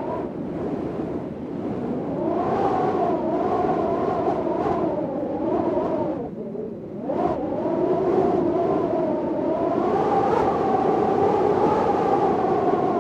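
Storm wind howling in gusts, a rushing noise with a whistling pitch that wavers up and down. It eases briefly about six seconds in, then swells back.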